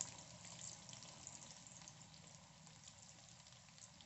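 Maggi noodle-and-vegetable balls deep-frying in hot oil: a faint, steady sizzle with fine crackling, and a brief louder crackle at the very start as another ball goes into the oil.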